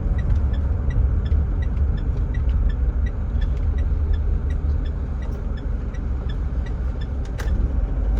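Mitsubishi Pajero Sport's engine running, heard from inside the cabin as a steady low drone as the SUV pulls up, with a faint regular ticking about two times a second.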